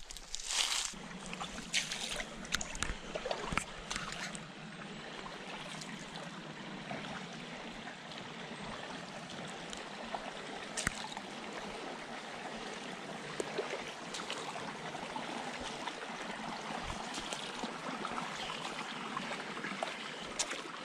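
Creek water running steadily. In the first few seconds, footsteps crunch through dry fallen leaves.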